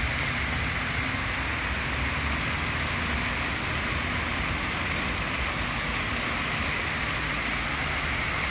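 Steady hiss of many fountain jets splashing into the basin, with a low rumble underneath.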